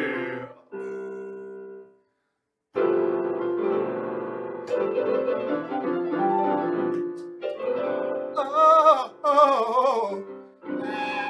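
Portable electronic keyboard played on a piano voice, sustained chords and melody, broken by a sudden dead silence of under a second about two seconds in. From about eight seconds in, a man sings over it in an operatic style with wide vibrato.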